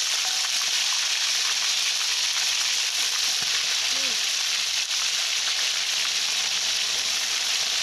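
Spiced chicken pieces deep-frying in a wok of hot oil: a steady, dense sizzle with fine crackling.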